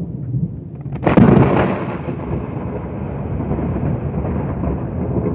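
Thunderclap from a nearby lightning strike: a sudden sharp crack about a second in, followed by a long rumble that slowly fades.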